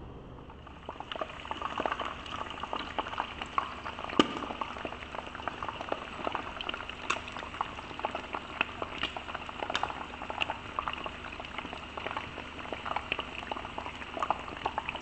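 Chicken pieces frying in hot oil in a pan: a steady sizzle dotted with frequent small crackles and pops.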